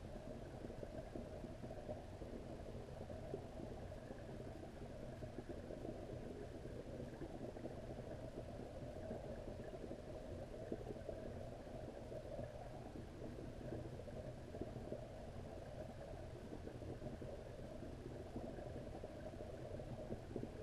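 Steady, muffled low rumble of pond water heard through a submerged camera, with no separate splashes or knocks.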